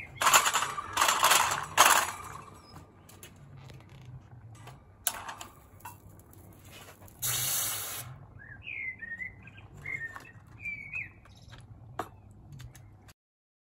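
Clattering and scraping of a steel ingot mould and foundry tools on a metal grill, loudest in the first two seconds, then a short hiss a little after seven seconds. Small birds chirp in the background afterwards.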